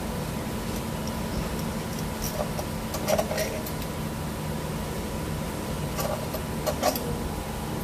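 Hand tools clinking against metal engine parts a few times, in small clusters about three seconds in and again around six to seven seconds in, over a steady low background hum.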